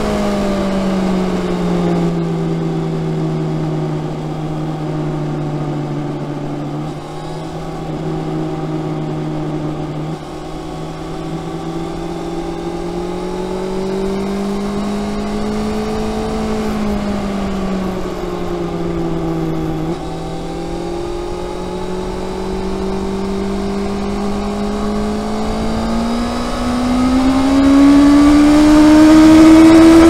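2019 Honda CB650R's 649 cc inline-four running through its stock exhaust, heard from under the seat while riding. The revs ease off at first, hold and drift up and down while cruising, then climb steadily as the bike accelerates, getting much louder near the end.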